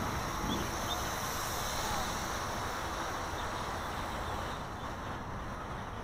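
Wind buffeting the microphone, over the faint, steady high whine of a Walkera QR Y100 hexacopter's small electric motors flying overhead, which fades about five seconds in.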